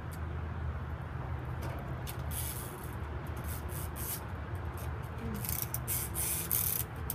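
Short, irregular scraping and rubbing noises, starting a couple of seconds in, as a plastic wind-up chicken toy is handled and turned in the hands, over a steady low rumble.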